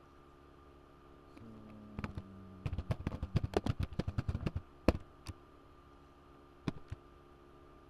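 Computer keyboard being typed on, a fast run of keystrokes lasting about three seconds, then a few single key presses.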